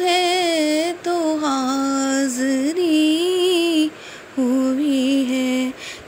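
A solo voice singing a naat in a slow melody of long, wavering held notes, breaking off briefly about a second in and again about four seconds in.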